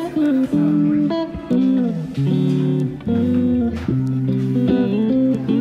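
Background music led by plucked guitar, playing a melody of changing notes.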